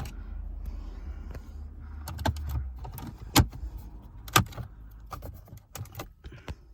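Plastic dashboard fascia panel of a Peugeot 508 clicking and knocking as it is pushed and wiggled onto its retaining clips. There are several sharp knocks, the loudest two about a second apart midway, with a low rumble of handling over the first couple of seconds.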